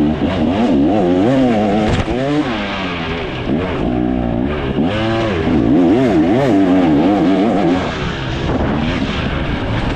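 2024 KTM 300 XC two-stroke single-cylinder dirt bike engine ridden on a tight trail, revving up and down over and over as the throttle is opened and closed. It eases off somewhat near the end.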